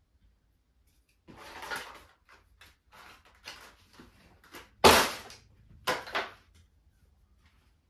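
Handling noises of a small boxed charger and a pair of scissors being picked up and set down on a tile floor. A rustle comes first, then a few light clicks, then a sharp knock about five seconds in, the loudest sound, and another clatter a second later.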